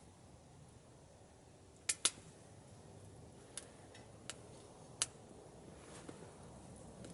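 Wood fire in a small camp stove crackling: five sharp snaps over a faint steady background, a close pair about two seconds in being the loudest.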